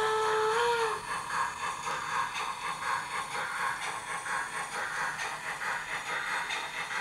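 Model Br 39 steam locomotive: its steady whistle lifts briefly in pitch and cuts off about a second in. It then passes with a quick, even rhythmic rattle of chuffing and running gear.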